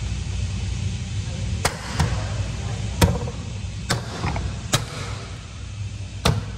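About six sharp clicks and knocks, irregularly spaced, as a redesigned Tesla Cybertruck plastic aero wheel cover is pressed and tapped into place on the wheel by hand, its clips seating. A steady low hum runs underneath.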